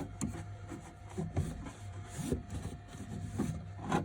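Cloth rubbing and scuffing along a 3D printer's lead screw and frame in irregular strokes, with a few light knocks, over a steady low hum from the powered-on printer.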